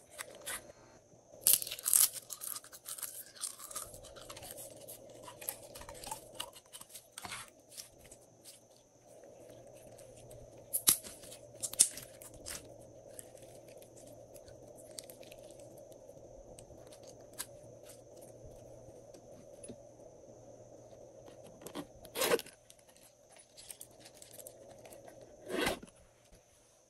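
Hands handling a jar of purple glitter clear slime: sharp clicks and crackles as the jar is opened about two seconds in, then sticky crackling and squelching as the slime is pulled and stretched. Two louder wet slaps near the end as it lands in the tray.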